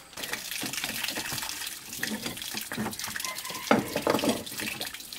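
Tap water running steadily into a metal sink basin, with a few knocks and clinks of tools being handled, the loudest about three and a half seconds in.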